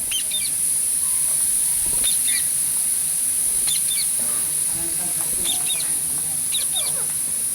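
A parrot, likely a rose-ringed parakeet, gives short high chirps about every one to two seconds, five times in all, over a steady high-pitched hiss.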